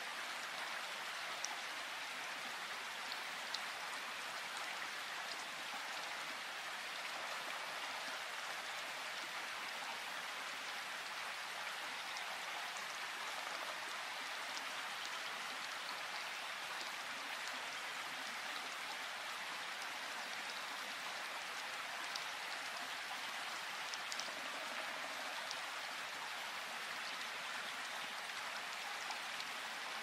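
Steady rain: an even hiss with scattered faint ticks of drops.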